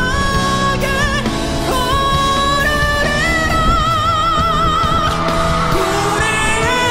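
Background music: a song with a singing voice holding long notes with vibrato over a steady band accompaniment.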